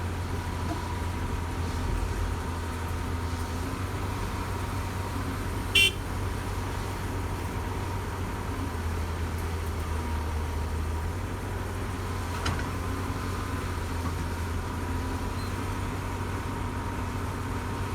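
Heavy diesel engine of a CAT 320D excavator running steadily, with one short, sharp, high-pitched toot about six seconds in.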